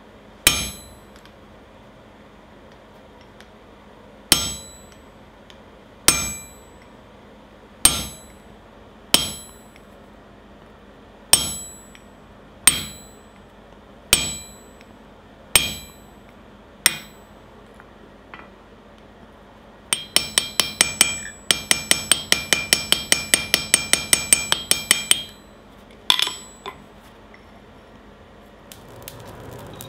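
Hammer striking a hand-held punch set on the red-hot steel ring of a forged bottle opener on the anvil, raising the rounded bump that catches the cap. About ten single blows, each with a short metallic ring, come a second or two apart; then a run of quick light hammer taps, about five a second, for some five seconds, and two last strikes.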